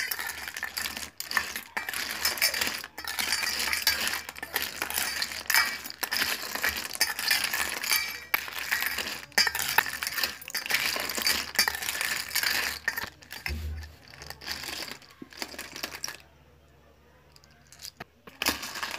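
Cooked clam shells clattering and clinking against a metal bowl as they are tossed and mixed. The dense rattling stops about three-quarters of the way through, and a few separate clinks follow near the end.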